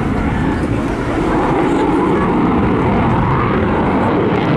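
Jet noise from an RAF Typhoon FGR4 fighter's twin Eurojet EJ200 turbofans, a loud, steady rush as the jet flies its display.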